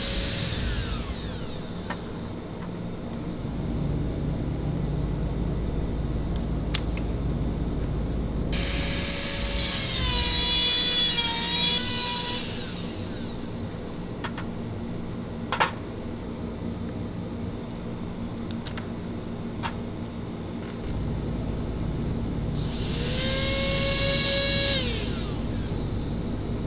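A handheld micromotor rotary tool with a small abrasive point grinds a 3D-printed metal pen barrel. Its high whine spins up, holds for two or three seconds and winds down, about a third of the way in and again near the end. A steady low hum runs between, with one sharp tick about halfway.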